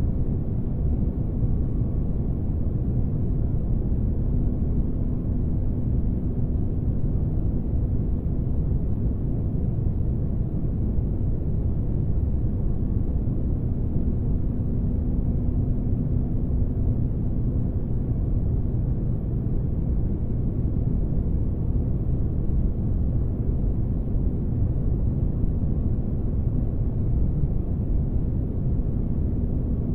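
Spaceship ambience for sleep: a steady, deep rumbling noise with a faint humming tone that fades in and out a few times.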